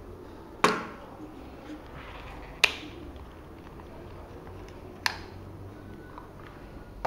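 Hard plastic action-camera mounts and frame clicking and knocking as they are handled and fitted together: three sharp clicks a couple of seconds apart.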